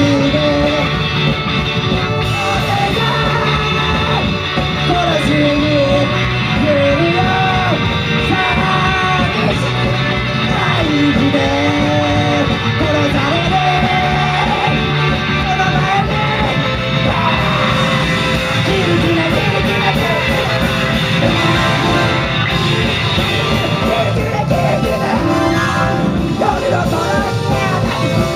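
Rock band playing live: a voice singing a melody over electric guitars, keyboard and drums.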